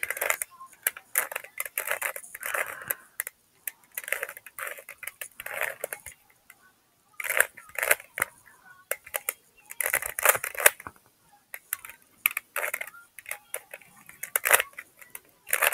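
Plastic Rubik's Cube turned rapidly by hand: layers clicking and clacking in quick irregular bursts, with a short pause about six seconds in.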